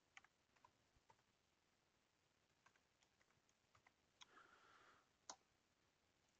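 Faint computer keyboard keystrokes, a dozen or so scattered clicks as a code is typed in, with a brief soft hiss about four seconds in.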